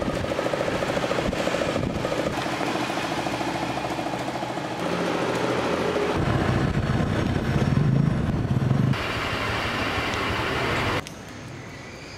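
A motor running steadily, its sound changing in abrupt steps. It is loudest and deepest between about six and nine seconds, then drops sharply near the end.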